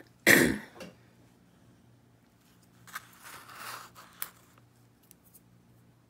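A person coughs once, loud and sharp, near the start. About three seconds in comes a quieter rustling scrape that ends in a click.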